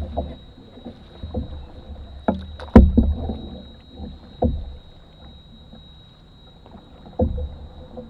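Canoe being paddled: irregular knocks and thumps of the paddle against the hull every second or two, the loudest about three seconds in, over faint water noise.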